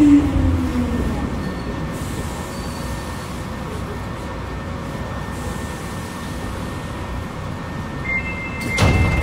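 Hankyu 3300 series resistor-controlled train running in a subway tunnel, heard from inside the car. Its motor whine falls in pitch and fades about a second in as the train slows, leaving a steady rumble of wheels on rail. Near the end comes a brief high squeal and a rattling burst.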